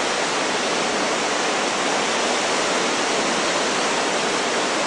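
Lake Superior waves breaking on a rocky shoreline, a steady rush of surf with no separate crashes standing out.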